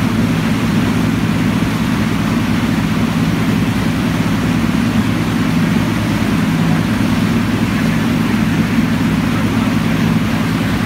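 Boat motor running steadily at speed, with the rush of water churned up in its wake.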